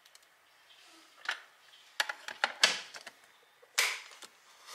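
Clear plastic food storage canister being handled: a few light plastic clicks and taps, then the sharpest click a little under four seconds in as its white lid is pressed shut.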